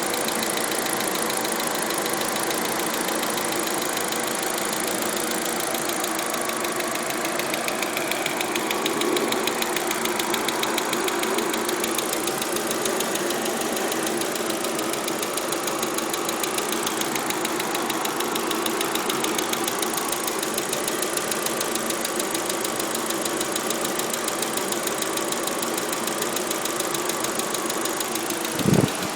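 Audi A4 engine running steadily with a fast, even ticking over it, the weird tick the owner is trying to pin down. A single sharp thump near the end.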